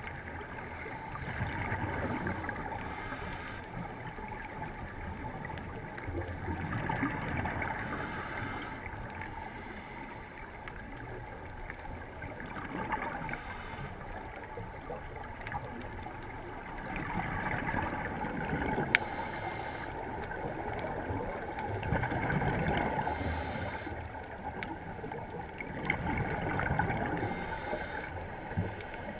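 Scuba diver's breathing heard underwater through a camera housing: exhaled bubbles from the regulator rushing up in swells about every five seconds, over a steady underwater wash. One sharp click about two-thirds of the way through.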